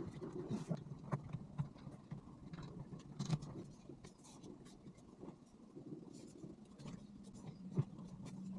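Faint, irregular rubbing and rustling with small clicks and knocks, as a microfiber leather steering wheel cover is stretched and worked onto a car's steering wheel.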